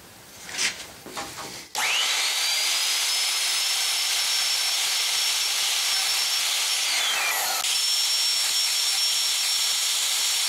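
Makita 3612 plunge router switched on about two seconds in, its whine rising fast to a steady high pitch, running as it cuts a mortise in the end of a wooden bar.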